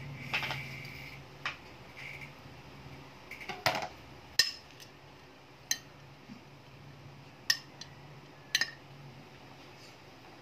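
Metal spoon clinking against a glass baking dish while chopped chicken sisig is stirred, with about six sharp clinks spread a second or two apart.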